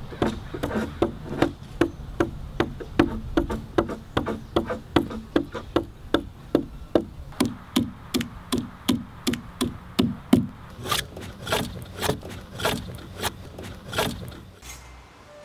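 Hand adze chopping into red cedar, a steady run of sharp wooden strikes about three a second, then a few louder, more widely spaced strokes near the end.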